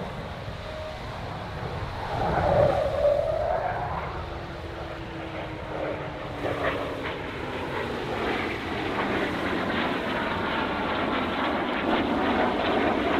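RAF Eurofighter Typhoon's twin turbofan jet engines in a display flypast: steady jet noise that swells about two and a half seconds in, with a tone that slowly falls in pitch as the jet passes.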